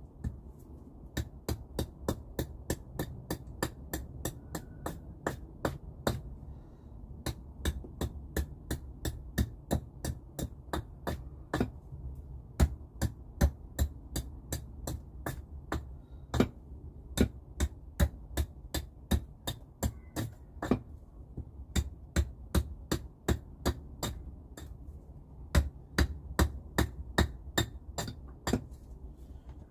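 A tool striking wood in quick, even runs of sharp knocks, about three a second, with two short breaks.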